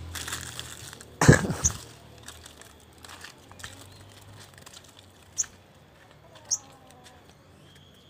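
Wooden slatted bird cage being moved and handled: a loud clatter about a second in, then scattered light knocks and rustling, with a few short high chirps.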